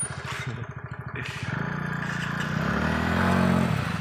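Small single-cylinder scooter engine chugging at low revs, then revving up from about a second and a half in as the scooter is spun around on loose dirt, and easing off near the end.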